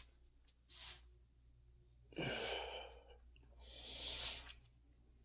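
A man sighing and breathing heavily while uncomfortably full from overeating. There is a short breath about a second in, a deeper voiced sigh about two seconds in, and then a long drawn-out breath.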